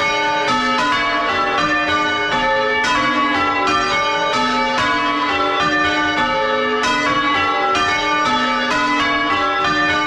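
A chip-tuned ring of six church bells, tenor about 9 cwt, being change rung full circle, heard close up in the belfry. There is an even, unbroken stream of strikes, each bell ringing on under the next.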